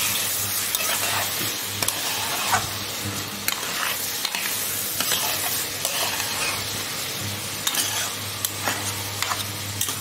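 Prawns, cubed potatoes and bean seeds sizzling in oil as they are fried down with spices and stirred with a spatula, with irregular scrapes and knocks of the spatula against the pan. A steady low hum runs underneath.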